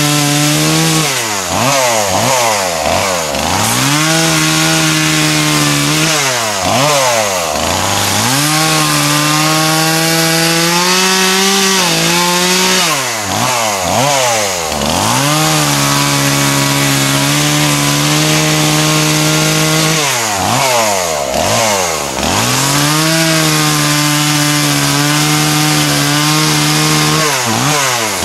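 Chainsaw running at high revs while cutting cedar wood. Its pitch drops sharply and climbs back several times as the throttle is let off and reopened between cuts.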